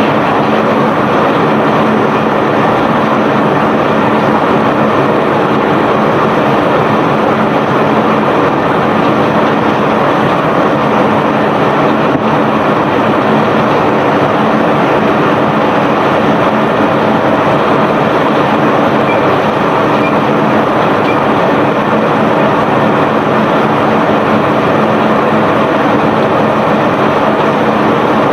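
A self-unloading barge's conveyor machinery running steadily as it discharges bulk cargo. There is a continuous rattling rumble with a steady hum under it.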